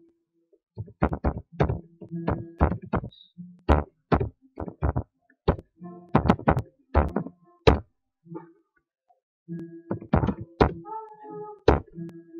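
Typing on a computer keyboard: loud, irregular key clacks in short runs with brief pauses, about two or three a second.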